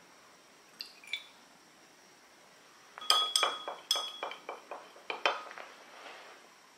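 A spoon stirring a little liquid in a small glass tumbler, clinking quickly against the glass about a dozen times, each clink ringing briefly. Two light ticks come a couple of seconds before the stirring.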